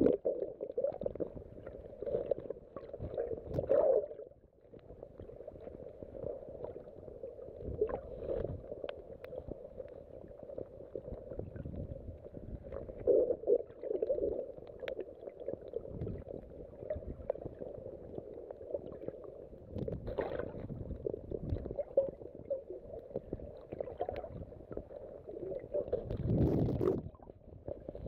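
Muffled sloshing and rumbling of seawater heard through a phone held underwater, swelling and fading irregularly, with scattered small knocks.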